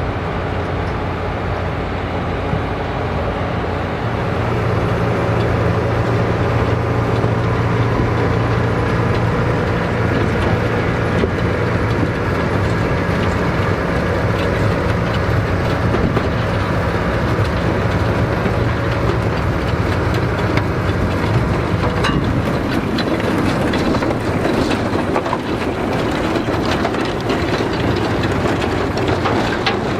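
Tractor engine running steadily with the rattle and clatter of working field machinery. The engine gets louder a few seconds in, and the clattering grows busier in the last third.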